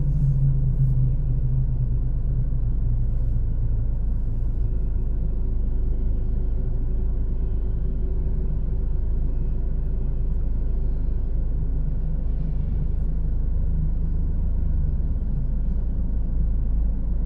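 Steady low engine rumble with a faint hum, heard from inside an idling vehicle's cabin.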